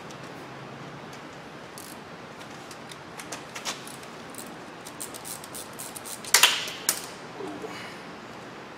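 Thread chaser turned by hand in an exhaust manifold bolt hole of a Ford V10 cylinder head: irregular light clicks and snaps as it knocks leftover bits of the old broken bolt's thread loose, with one louder scraping crack about six and a half seconds in.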